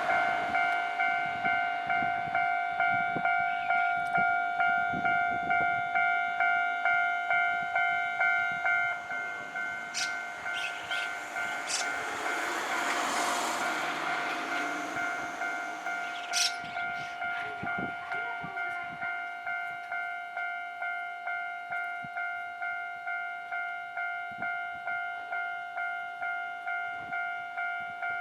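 Japanese railway level-crossing alarm ringing, a steady repeating ding a little under two times a second, dropping in level about nine seconds in. A train passes through the crossing in the middle, with a rushing noise and a few sharp clacks of wheels over rail joints.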